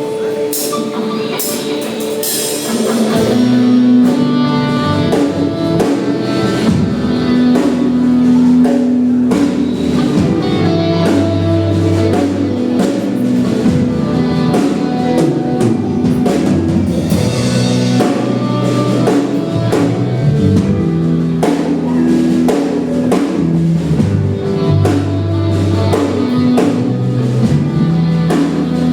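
Worship band playing an instrumental passage on drum kit and guitar, with a steady beat and bass notes underneath.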